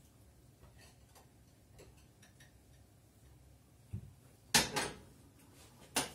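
A metal hand-held lime squeezer handled with faint small clicks, then set down with a thump and two sharp metallic clanks, the loudest about four and a half seconds in and another near the end.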